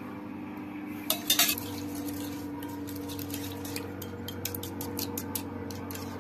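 Metal spoon stirring and clinking against a small glass bowl, mixing food colouring powder into water so no lumps remain. A cluster of louder clinks comes about a second in, then lighter, quicker ticks. A steady low hum runs underneath.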